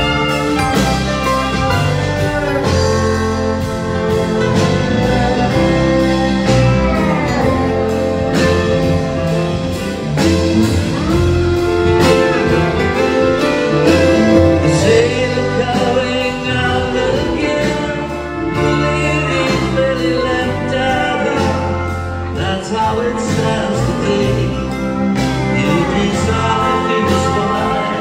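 Live band music: acoustic guitar, electric bass, steel guitar and drums playing a long passage, with gliding lead notes over a steady drum beat.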